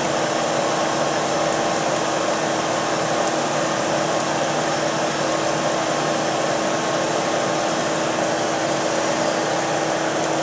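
Steady rush of water sprayed from a hose across the deck of a vibrating UHF gold concentrator table, over a steady machine hum, as the last fine gold is washed across into the concentrate trough.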